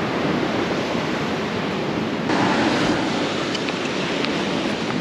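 Ocean surf washing onto a sandy beach: a steady rush of breaking waves, with wind buffeting the microphone.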